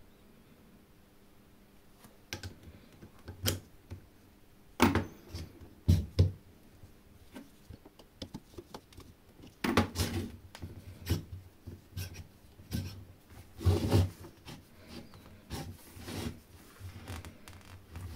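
Irregular clicks, knocks and scraping of small parts being handled by hand, starting about two seconds in, with a few sharper knocks.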